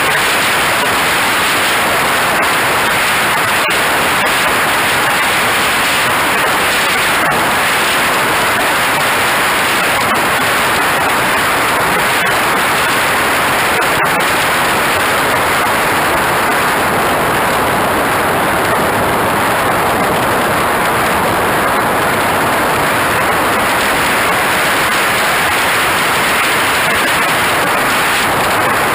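Steady, loud rushing noise of airflow and the jet engine, picked up by a camera mounted under the wing of a radio-control jet in flight.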